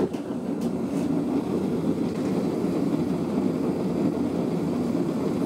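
Propane burner of a VEVOR gas melting furnace lighting with a sudden whoosh, then running with a steady low rushing noise, its air choke not yet opened fully.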